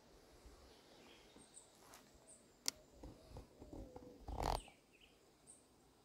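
Faint background with a few scattered, distant bird chirps. A sharp click comes a little before the middle, and a louder brief rustling thump comes about three-quarters of the way through.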